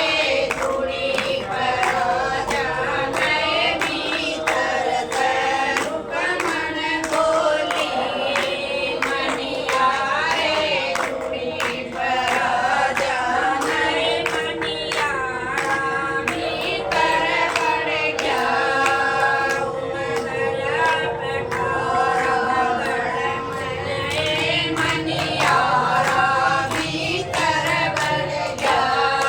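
A group of women singing a Haryanvi folk devotional song together, with steady rhythmic hand clapping and a single held note droning underneath.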